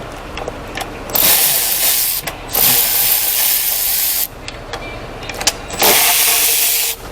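Compressed air blowing from an air nozzle in three bursts of hiss, each a second or more long, starting and stopping sharply.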